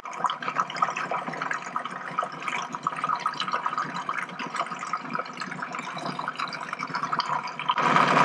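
Food processor running, its blade churning a thin liquid cheese mixture of hot milk and gelatin so that it sloshes and splashes in the plastic bowl. The sound gets louder near the end.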